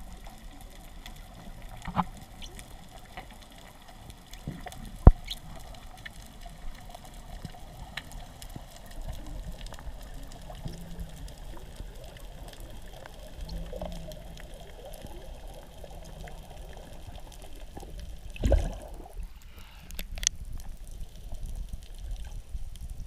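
Underwater sound recorded by an action camera held at arm's length during a freedive: a steady, muffled water wash with scattered sharp clicks, the loudest about five seconds in. About eighteen seconds in there is a brief, louder rush of water as the diver nears the surface.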